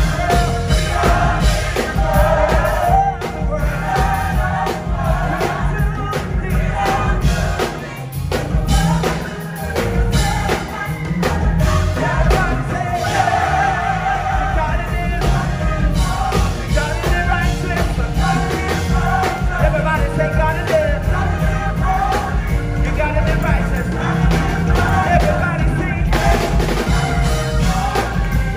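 Gospel choir singing over a live band with drums, loud and steady, with a brief drop in level about eight seconds in.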